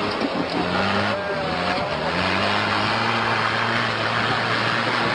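Off-road 4x4 competition vehicle's engine running hard under load on a steep climb, its note dipping and climbing again about two seconds in, then held high.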